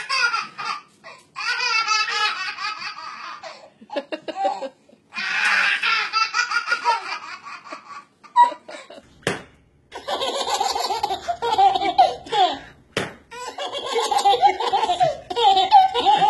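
Babies laughing hard in repeated bursts of belly laughter and giggles, with a couple of sharp clicks in the middle.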